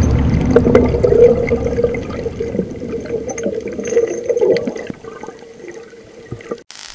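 Underwater sound picked up through an action camera's waterproof housing: muffled water rushing and sloshing, with scattered clicks and a steady faint hum. It grows quieter about five seconds in and cuts off abruptly just before the end.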